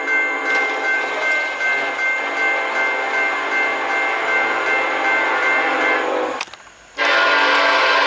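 Locomotive's Nathan AirChime K5LLA five-chime air horn blowing a long chord that wavers gently in loudness, then breaking off about six and a half seconds in and sounding again, louder, half a second later.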